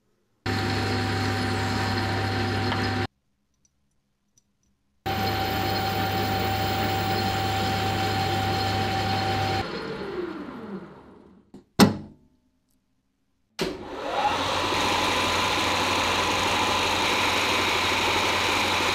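Electric motor of a workshop machine tool running at steady speed with a constant whine and low hum, in stretches that start and stop abruptly. About ten seconds in it is switched off and winds down with a falling whine, then a sharp click. It starts again, its whine rising as it comes up to speed and then holding steady.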